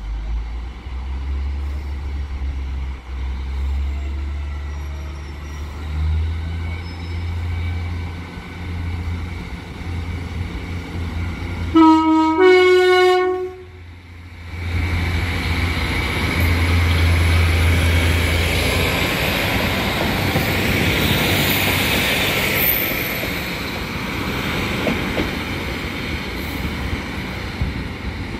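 Class 153 diesel multiple unit approaching with its engine running, then sounding a short two-tone horn, a lower note followed by a higher one, about twelve seconds in. It then passes close by, its engine and wheel noise on the rails loudest for several seconds before easing.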